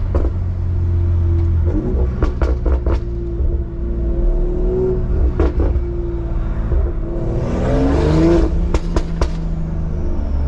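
BMW M340i's turbocharged inline-six through an aftermarket catback exhaust with downpipe and stage 2 tune, heard from inside the cabin: a low exhaust drone broken by sharp pops and crackles. The revs rise briefly about seven seconds in, followed by a quick group of pops.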